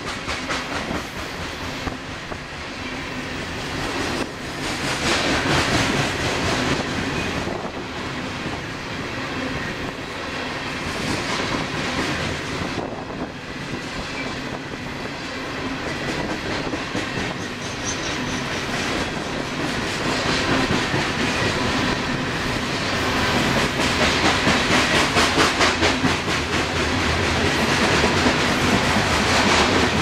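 Freight train of CSX coal cars rolling steadily past, steel wheels clacking rhythmically over the rails, growing louder over the last several seconds.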